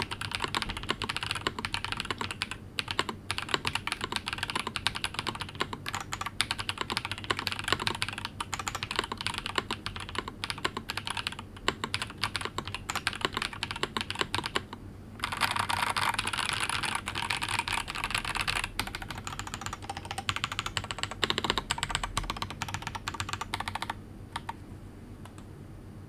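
Typing on a Ramaworks Kara mechanical keyboard with Zaku linear switches (polycarbonate top, nylon bottom, 63.5 g two-stage spring) and Cherry-profile doubleshot PBT keycaps, on silicone mounting. The keystrokes run dense and steady, stop briefly, then come in a louder, quicker flurry before thinning out and stopping a couple of seconds before the end.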